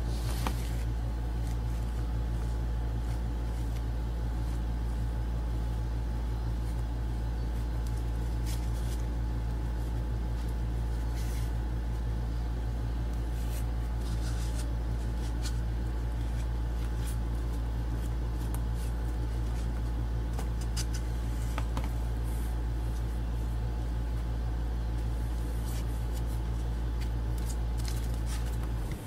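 Steady low hum that cuts off abruptly near the end, with faint scattered rustles and light taps of hands working glue-soaked paper towel onto cardboard.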